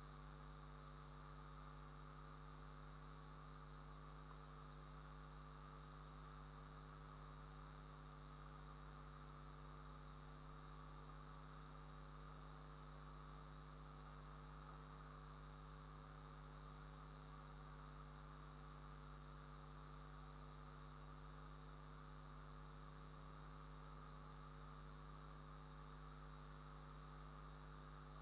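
Near silence: a steady low electrical mains hum with faint hiss.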